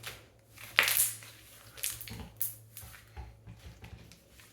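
Homemade slime squished and pressed by hand, giving irregular crackling pops, loudest about a second in.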